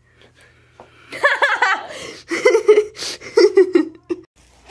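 Children laughing and giggling, starting about a second in: a rising burst of laughter followed by a run of short repeated laughs.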